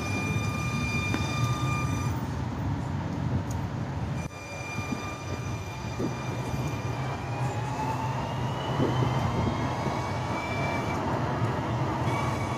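Alstom Citadis Dualis tram-train with a steady electric whine over a low rumble. The whine drops out briefly, then from about seven seconds in rises in pitch as the tram picks up speed.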